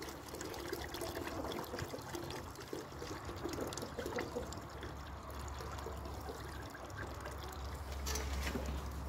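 Hot water and melted beeswax trickling out of the spout of a screw wax press in a steady stream as the boiled slumgum is squeezed.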